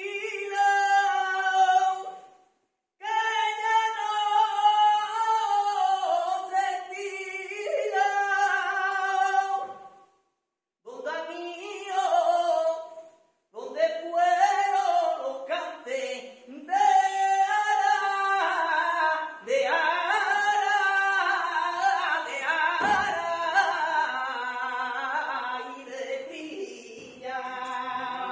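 Male flamenco singer singing long, ornamented held lines, the phrases broken by short silences with no guitar heard in the pauses.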